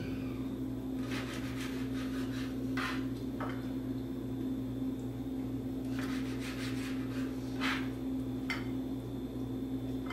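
Kitchen knife cutting pejerrey fillets in half on a cutting board: runs of quick scraping and tapping strokes about a second in and again around six seconds in, with a few single sharper knocks between. A steady low hum runs underneath.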